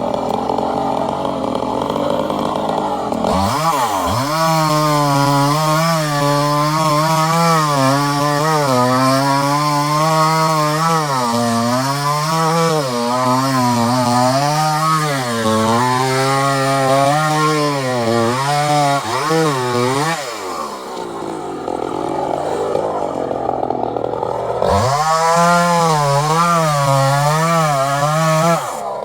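Two-stroke chainsaw revving up to full throttle about three seconds in, its high engine note wavering up and down as the chain cuts into wood. Around twenty seconds in it drops back off throttle, then revs up again near the end.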